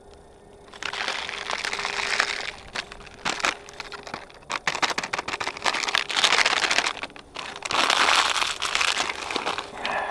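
Rustling, crinkling and crunching in three long bursts, broken up by sharp clicks and cracks.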